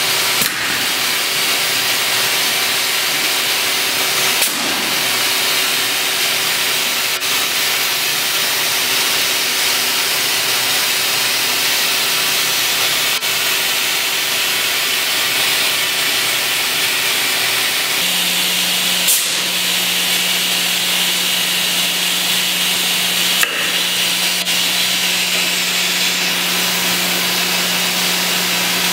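SNX nVision contour edgebander running while a panel's edge is fed through it by hand to apply edgebanding: a steady hiss with a constant hum that drops to a lower hum about two-thirds of the way through, and a few light clicks.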